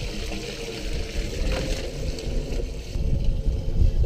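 Water being poured from a bucket into a calf's water tank. A low rumble on the microphone grows louder near the end.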